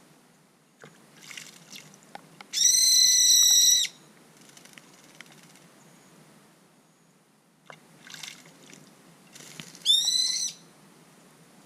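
Brown-eared bulbul calling: two loud, high calls, a long level one a few seconds in and a shorter one that rises in pitch near the end, with soft scattered clicks and rustles between.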